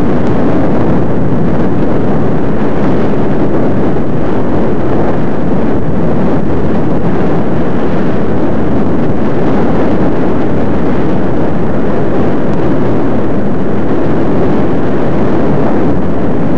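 Loud, steady wind noise rushing over the microphone of a camera carried along on a moving bicycle, without change.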